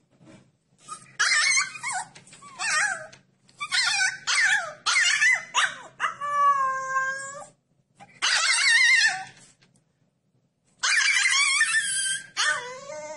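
Husky puppy howling: repeated high, wavering howls and yelps in short bouts, with a longer, steadier howl about six seconds in and another near the end.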